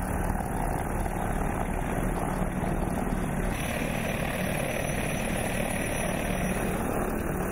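Mi-35 attack helicopters running: a steady mix of rotor and turbine noise with a steady low hum. About halfway through, the sound shifts slightly, from helicopters flying past to one running with its rotors turning on the ground.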